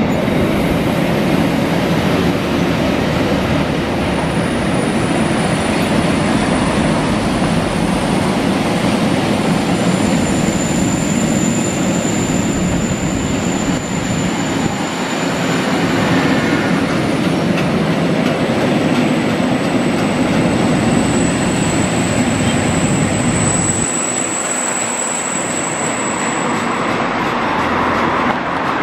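Freight train of bogie covered wagons rolling past, steel wheels running on the rails. A thin high-pitched wheel squeal comes in twice, around ten seconds in and again from about twenty seconds, and the deep rolling noise drops away near the end as the last wagon goes by.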